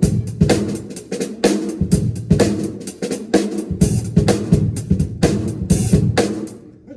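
Drum kit played in a steady groove during a sound check, snare and bass drum strikes with cymbals ringing over them. The playing stops about a second before the end and the ring fades out.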